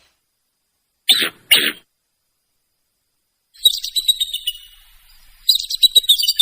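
Two short harsh bursts about a second in, then two runs of rapid high bird chirps, each with a falling trill, starting abruptly with dead silence between them like separately edited sound-effect clips.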